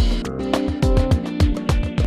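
Background music: an instrumental track with plucked notes, a steady beat and a heavy bass line.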